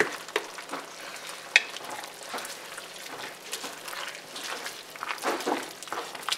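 Wooden spoon stirring a thick bean-and-pasta soup in an enameled cast-iron pot, with irregular wet scrapes and knocks against the pot over a light simmering sizzle. A single sharp click about one and a half seconds in.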